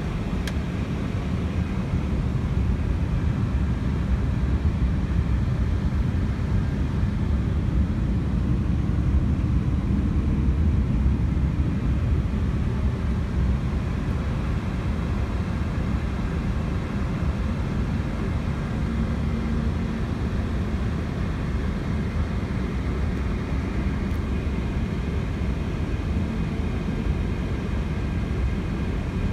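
Cockpit noise of an Airbus A321neo taxiing on the ground: a steady low rumble from the running engines, with a faint steady whine above it.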